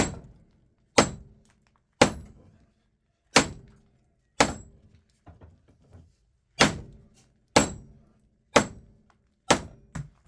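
Hammer blows on a small scrap transformer, about one a second, ten strikes in all, each with a short metallic ring, battering it to break the core apart and free the copper windings. Around the middle the blows pause for a moment of lighter clatter.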